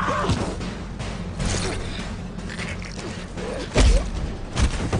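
Film soundtrack of a hand-to-hand fight: scuffling, blows and short grunts over a steady low engine rumble, with two heavy thuds close together near the end, the first the loudest.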